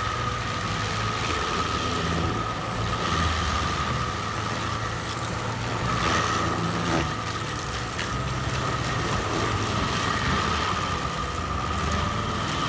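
Stump grinder running: a steady engine drone with a constant high whine over it as the cutting wheel grinds a tree stump into mulch.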